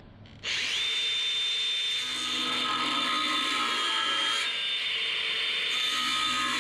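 DeWalt angle grinder with a cut-off wheel spinning up about half a second in to a steady high whine, then cutting through a steel gate pipe, its pitch sagging slightly under load partway through.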